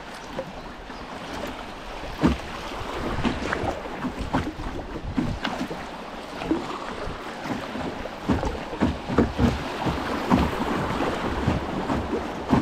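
Canoe running down a fast, shallow stream: water rushing and churning over riffles, with irregular splashes and knocks from paddle strokes and the hull. The rush grows louder after the first few seconds.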